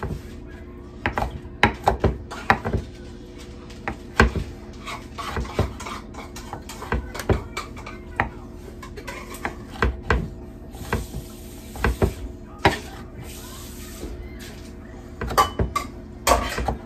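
Kitchen clatter: irregular knocks and taps of a knife and utensils on a cutting board and pan as steamed broccoli and cauliflower are chopped and handled, over a steady low hum.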